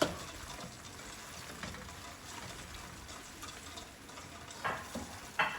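Sauce simmering in a wok, a steady bubbling hiss, with a sharp knock right at the start and two short clatters near the end.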